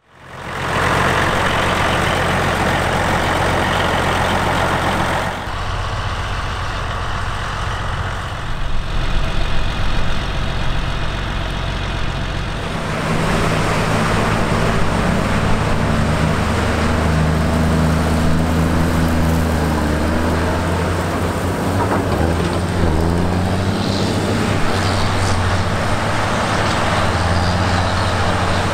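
John Deere 9520 four-wheel-drive tractor's diesel engine running. The sound shifts abruptly about five and about thirteen seconds in, and in the second half the engine note rises and falls as it works.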